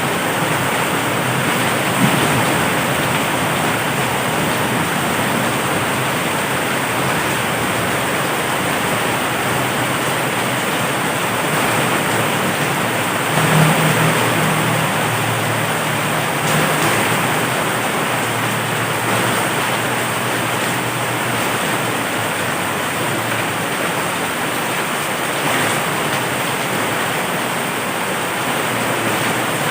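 Heavy rain pouring steadily, a dense even hiss. A low rumble of thunder comes in about halfway through and fades over several seconds.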